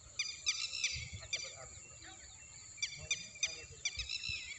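A bird calling in quick runs of short, sharp, high notes, in two bursts: one in the first second and a half and another starting near the three-second mark.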